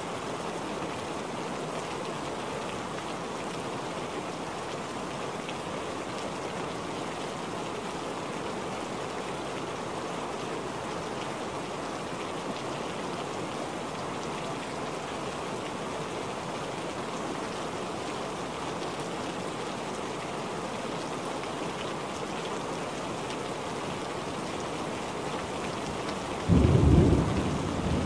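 Steady rain falling, an even wash of splashing drops. About a second and a half before the end, a sudden low boom of thunder is the loudest sound, fading away after it.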